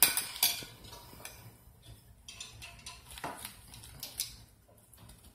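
A metal utensil clinking and scraping against a plate and dishes while dry rub is worked onto pork chops. A cluster of sharp clinks comes first, then single clinks about once a second that grow fainter near the end.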